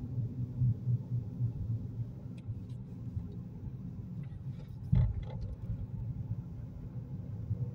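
Steady low road and engine rumble heard inside a Ford car's cabin while driving at highway speed. A single sharp thump comes about five seconds in, with a few faint clicks around it.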